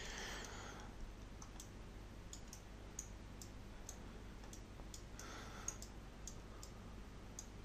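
Faint, scattered clicks from a computer mouse, a tick every half second or so, over a low steady hum.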